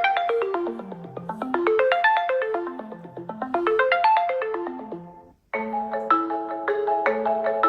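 Samsung Galaxy A17 ringtones playing. A melody of quick notes runs down and back up in pitch about once every second and a half, then fades out. About five and a half seconds in, a different ringtone starts abruptly with a pattern of repeated notes and chords.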